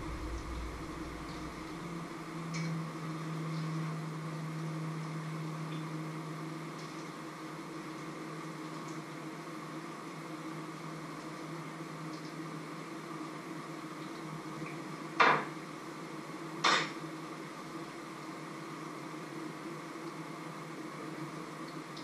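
Two sharp clanks of cookware about a second and a half apart, over a steady hum.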